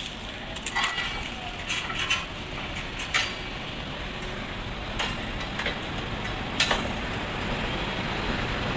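WAP-7 electric locomotive approaching slowly: a steady noisy rumble and hiss that grows louder as it nears, with several sharp clicks and knocks scattered through it.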